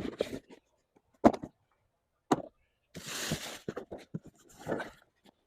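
Handling sounds during an unboxing: three sharp knocks a second or so apart, then a brief rustle about three seconds in and a few lighter clicks.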